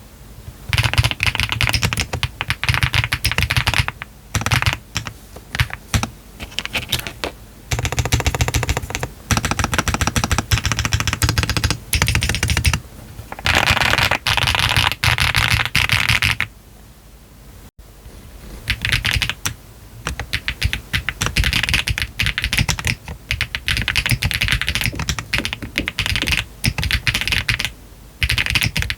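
Typing on a Meletrix ZOOM TKL mechanical keyboard with Yogurt switches, PBT keycaps and a PC flex-cut plate, in fast bursts with short pauses. The typing stops for about two seconds just past halfway, then resumes with the keyboard's case foam removed.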